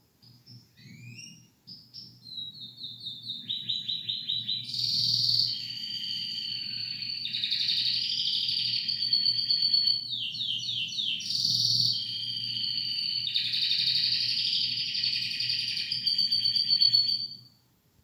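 Domestic canary song: a few short chirps, then rapid runs of repeated notes and long rolling trills. It stops suddenly near the end.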